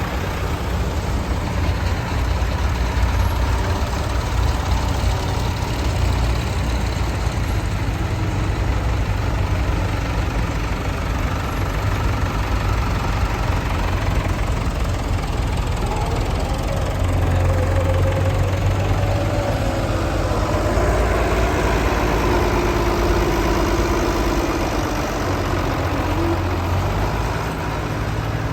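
Tractor engines running steadily at low revs, with a second engine's pitch wavering up and down in the second half.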